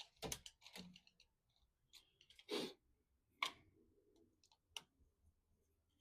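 Screwdriver turning a deadbolt's mounting screws by hand: faint scattered clicks of the tool on the screw heads and hardware, with a few louder knocks.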